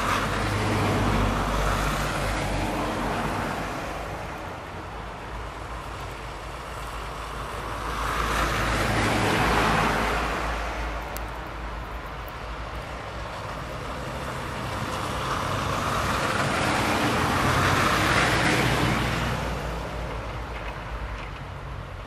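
Road traffic passing on a snow-covered street: engine and tyre noise of cars and vans, swelling and fading three times as vehicles go by, near the start, about halfway and near the end.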